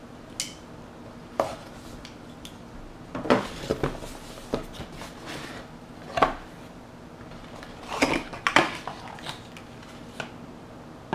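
Cardboard product box being opened by hand: flaps, lid and the inner packaging tray rustling, scraping and knocking in irregular bursts, loudest a few times around the middle and later on.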